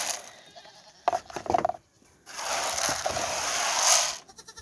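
Dry feed pellets poured into a plastic feeding trough, a rushing rattle in two pours, the second lasting about two seconds. A goat bleats briefly between them, about a second in.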